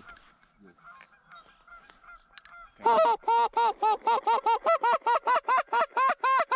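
A Canada goose call is blown in a quick, even run of loud clucking honks, about four a second, starting about three seconds in. It is the calling a hunter uses to bring an approaching flock of geese down to the decoys.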